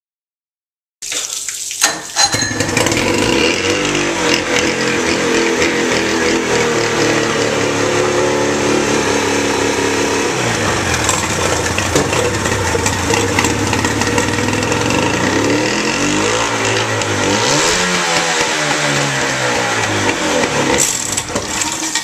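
1986 Johnson 50 hp two-stroke outboard motor running on a garden-hose water supply. Its revs drop and climb back twice, once about halfway through and again later. Water splashes off the lower unit.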